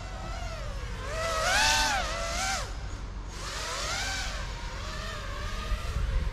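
FPV quadcopter's motors and propellers whining, the pitch sliding up and down as the throttle changes, loudest about two seconds in, over a low rumble.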